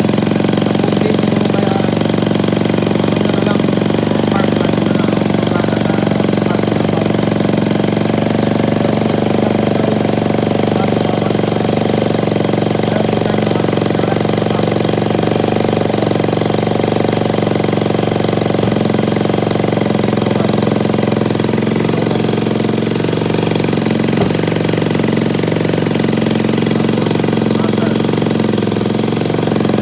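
Small scooter engine idling steadily with a fast, even chugging beat.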